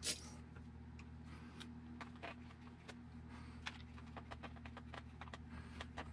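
Light, irregular clicks and ticks of a hex driver turning aluminum screws out of the plastic battery tray on an RC buggy chassis, over a steady low hum.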